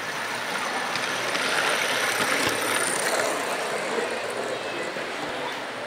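Large-scale model train running along the layout track: a steady rolling hiss, a little louder in the first half.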